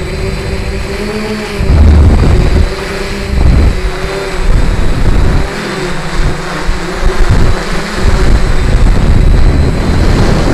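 Strong wind buffeting the microphone in gusts, over the steady hum of a quadcopter's motors and propellers, whose pitch wavers up and down as they work against the wind.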